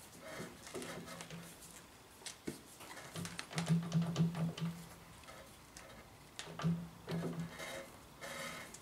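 Drill bit and worn-out chuck of a drilling machine worked by hand in a freshly drilled hole in steel, with the motor stopped: a few short low creaks and small metal clicks and scrapes, the creaks loudest a few seconds in and again near the end.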